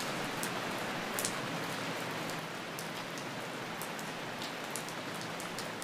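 Steady rain falling, an even hiss with single drops ticking sharply here and there.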